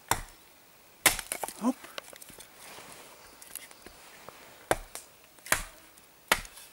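Axe chopping a dry branch laid on a wooden stump, splitting it lengthwise for kindling: about five sharp strikes, the second followed by a brief crackle of splintering wood.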